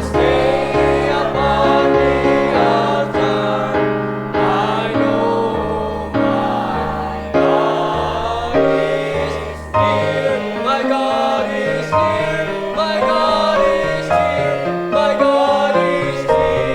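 Church choir singing a gospel hymn with instrumental accompaniment and bass notes changing every second or so.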